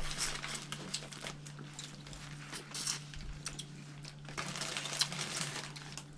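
Cooked prawns being peeled by hand and eaten: irregular small cracks and crinkles of shell and chewing, over a low steady hum.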